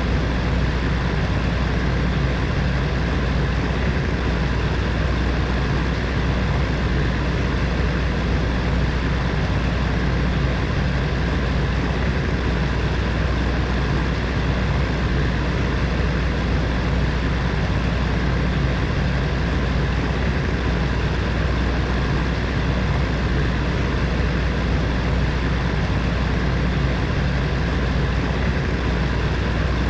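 Space heater's fan running steadily: an even whooshing airflow with a low hum underneath.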